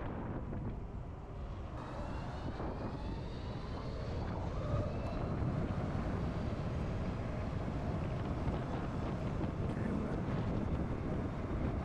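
Wind rushing over the microphone and tyre noise from a LiveWire S2 Del Mar electric motorcycle on the move. A faint rising electric-motor whine comes in about two seconds in as the bike accelerates, and the rush grows louder as speed builds.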